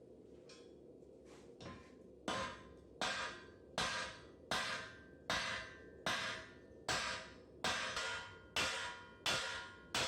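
Hammer blows on steel rebar being forged into a knife blade. After a few faint knocks, the blows fall in a steady rhythm from about two seconds in, roughly one every three quarters of a second, each with a brief metallic ring.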